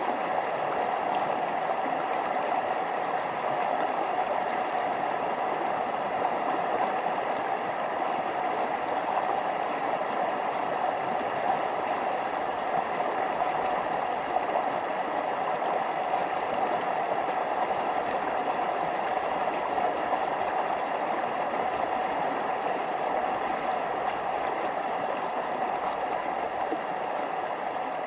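Forest stream flowing over small waterfalls: a steady, even rush of water.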